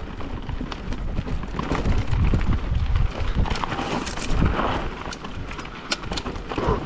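Mountain bike riding down over rock: tyre noise on stone with the chain and frame rattling in scattered clicks and knocks, over a steady rumble of wind on the microphone.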